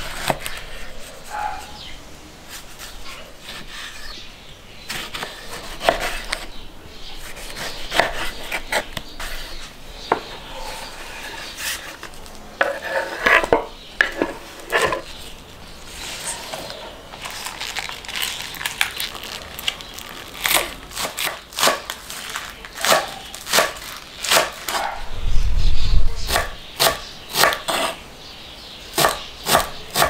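Chef's knife cutting through a tomato and green onions on a wooden cutting board, then fast chopping of herbs, the blade knocking on the board a few times a second in the last third. A brief low rumble near the end is the loudest moment.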